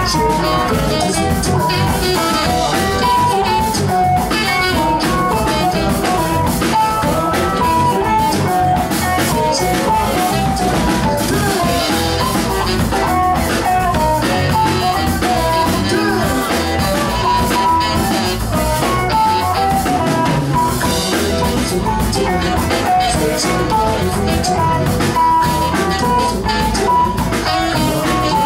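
Live rock band playing Latin rock: saxophone, electric guitar, bass guitar, keyboards and drum kit, loud and continuous, with a melody line stepping up and down over the band.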